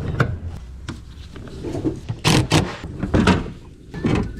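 A few knocks and scrapes of parts being handled and fitted back into place during reassembly, the loudest a cluster about halfway through and another near the end.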